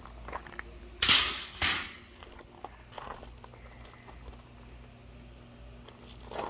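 An offset smoker's wire-mesh metal cooking grate set down on gravel: two loud clattering hits a little after a second in, then only faint small clicks.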